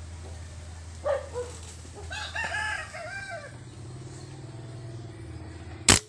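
A rooster crows about two seconds in, with a shorter falling call just before it. Just before the end a single sharp crack of a scoped rifle firing at birds on a branch.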